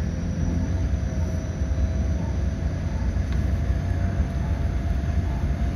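Running noise inside a JR West 223 series 2000 electric multiple unit under way: a steady low rumble of wheels on rail, with a faint high whine that rises slightly in pitch.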